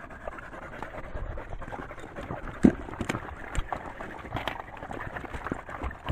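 Several dogs drinking at a small rock pool: rapid lapping and splashing with panting, and a scatter of clicks and knocks from claws and collars on stone, with one sharp knock about two and a half seconds in.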